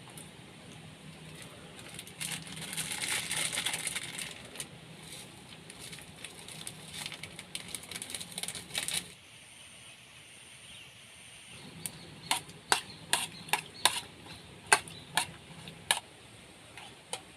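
Rustling with scattered light clicks, then a run of sharp knocks or taps, about two a second, in the second half.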